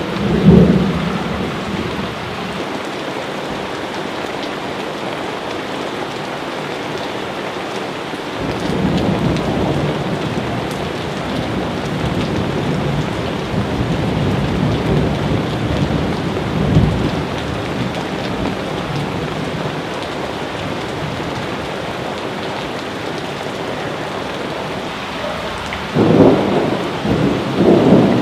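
Steady rain with thunder: low rolling rumbles swell under the hiss of the rain, once right at the start, for several seconds about a third of the way in, and loudest in a series of peals near the end.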